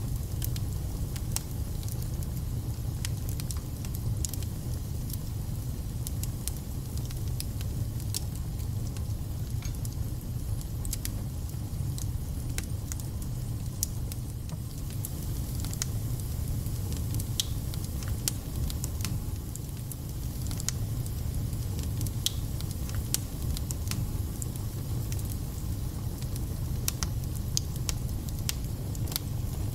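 Wood fire burning in a fireplace: a steady low rumble from the flames, with frequent sharp crackles and spitting pops at irregular moments.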